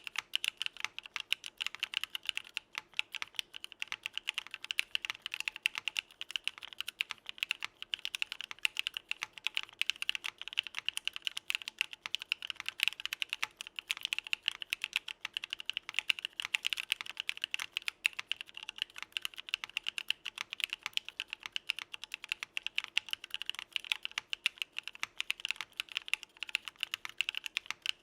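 Continuous fast typing on a Geonworks Frog mechanical keyboard with lubed Novelkeys x Kailh Cream v2 linear switches (all-POM housings and stem) on an aluminum plate, with no foam or dampening, under CRP keycaps. A dense, unbroken stream of many keystrokes a second, with their bright click sitting in the upper mids.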